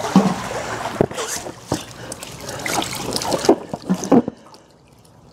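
Pool water splashing and sloshing as an inflated kayak air bladder is spun around and pushed through it for a submersion leak check; the splashing dies away about four seconds in.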